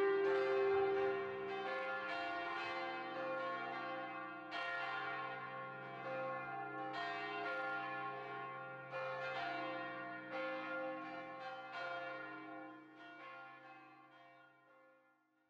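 Church bells ringing, struck one after another about once a second, each stroke ringing on; the ringing fades away near the end.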